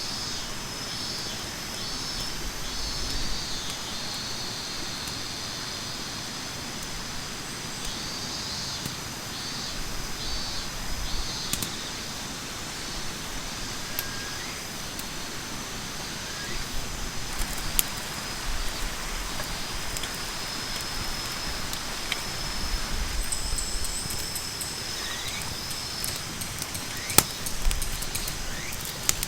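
Campfire burning with soft crackling and a few sharp pops, over a steady high-pitched chirring in the background.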